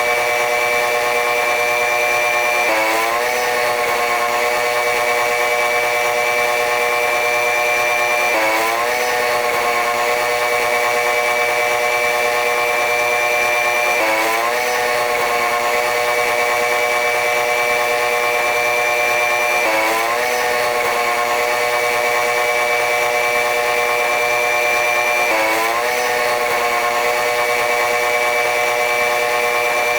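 Train running noise: a steady buzzing, machine-like drone with a high whine. The pattern repeats evenly, each time with a short upward sweep in pitch, about every six seconds.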